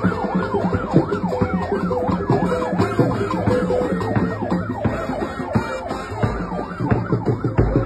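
A siren sweeping rapidly up and down, about three cycles a second, over music with steady notes and a beat. The siren thins out near the end.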